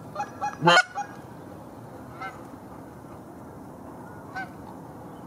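Canada goose honking in flight while circling: three quick honks in the first second, the third the loudest, then single fainter honks about two seconds and about four seconds later.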